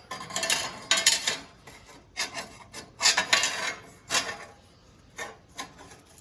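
Pieces of 1/8-inch steel plate scraping and rubbing against each other as they are handled, in a string of irregular scrapes with a few short knocks.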